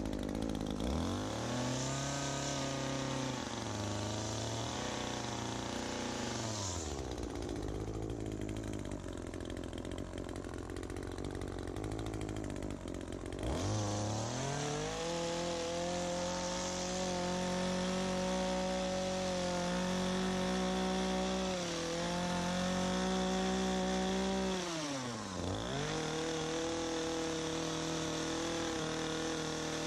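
ECHO PAS2620 power head's small two-stroke engine driving an articulating hedge trimmer attachment, revved up to cut, eased back toward idle, then revved up again. The engine speeds up about a second in, drops off around seven seconds, runs slower until about halfway, then speeds up again, with a deeper dip and recovery about 25 seconds in.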